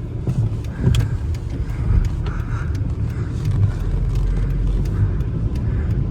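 A car driving slowly on a snow-covered road, heard from inside the cabin: a steady low rumble with scattered light clicks.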